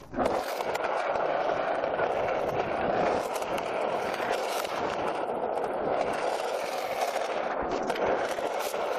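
Skateboard wheels rolling steadily over rough concrete: a continuous rolling noise that sets in right at the start and holds an even level.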